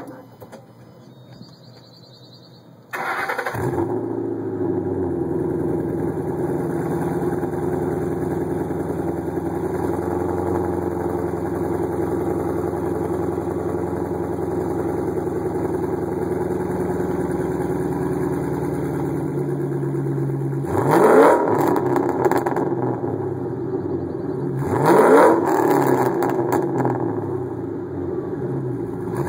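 2007 Ford Mustang GT's 4.6-litre V8 breathing through a Steeda exhaust with an X-pipe and no catalytic converters. It starts about three seconds in and idles steadily, then is revved in two sharp blips near the end.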